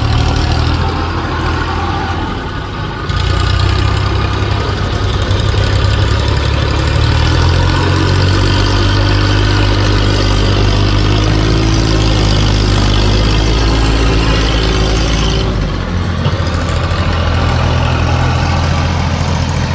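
Heavy diesel engine running steadily. Its note rises a little and then holds through the middle, and the sound changes abruptly twice.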